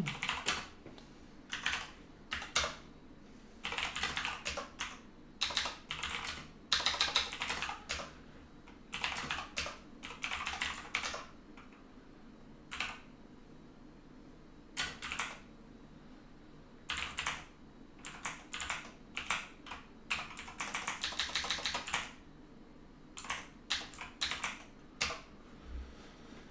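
Typing on a computer keyboard: irregular runs of rapid keystrokes, broken by pauses of a second or two.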